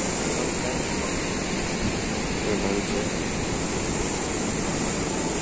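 Churning water rushing out below a dam, a steady, even rush of noise.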